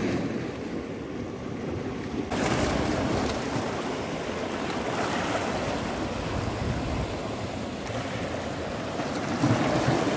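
Steady wash of sea waves, with wind rumbling on the microphone. The noise changes abruptly, growing brighter, a couple of seconds in.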